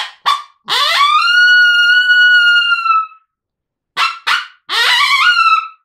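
Open-reed predator call blown as a coyote howl: two short sharp barks, then a long howl that rises, holds and tapers down at the end; about a second later two more barks and a shorter howl that climbs in steps. The call is blown with the teeth clamped on top toward the reed, which gives the sharp, higher-pitched howl with control over the tapering ending.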